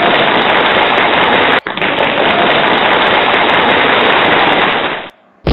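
A slideshow sound effect: a loud, steady crackling noise that restarts after a brief break about one and a half seconds in, as the next tick mark pops up, and stops about five seconds in.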